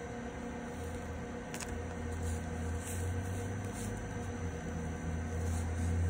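Small metal pick prying and clicking against a plastic Harley wiring connector as it works the side lock out, with one sharper click about one and a half seconds in, over a steady low background hum.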